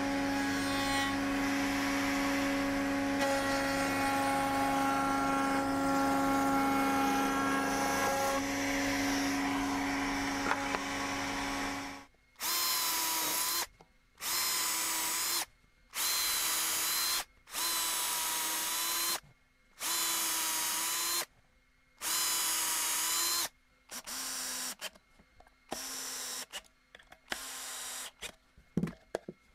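Table-mounted router with a half-inch bullnose bit running steadily while a wooden piece is pushed over it to cut a shallow groove; the router sound stops abruptly about twelve seconds in. A cordless drill follows, running in six bursts of about a second and a half each into a clamped wooden stand, then a string of shorter bursts near the end.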